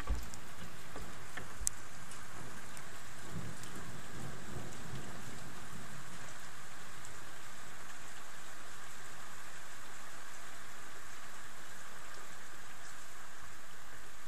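Steady rain falling, with a low rumble of thunder rolling through from about three seconds in until about five or six seconds in. A couple of sharp ticks sound in the first two seconds.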